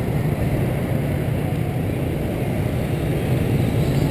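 Motorbike street traffic heard from a bicycle riding among it: a steady low rumble with no single vehicle standing out.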